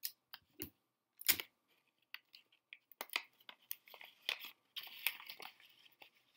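Sticky tape being pulled off and pressed onto a folded paper cube, with paper crinkling and handling taps. There are a few sharp taps in the first second and a half, then a longer run of crackly ripping from about three seconds in.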